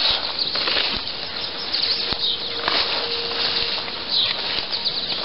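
Footsteps swishing and rustling through tall dry grass and weeds: an uneven, hissy brushing with a few soft footfalls.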